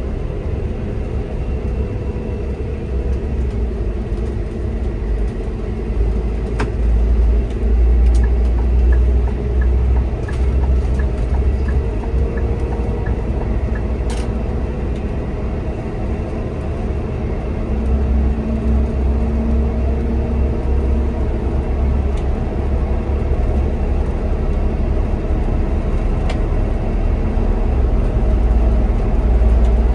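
Cabin sound of a Scania Citywide bus driving at motorway speed: steady low engine and road rumble with tyre noise. Partway through there is a short run of faint ticks, about two a second, and a few light knocks and rattles from the cab.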